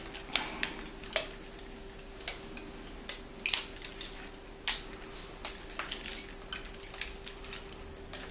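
Irregular small clicks and taps of hands handling a cheap action camera in its plastic case while fitting elastic bands around it onto a plastic-straw mount. A steady low hum runs underneath.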